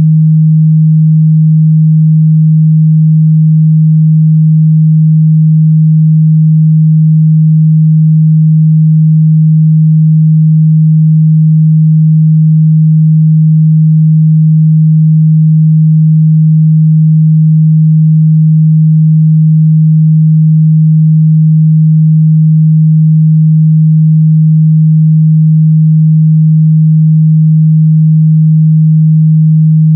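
A steady, loud 157 Hz sine-wave test tone, a single low hum held unchanged throughout, used for checking the mid-bass response of speakers and headphones.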